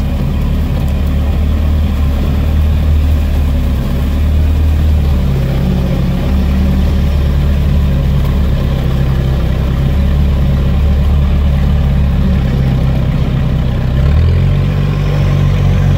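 Off-road UAZ engine running steadily at low revs as the vehicle crawls through a marsh, heard close from its own hood; the revs step up slightly about two seconds before the end.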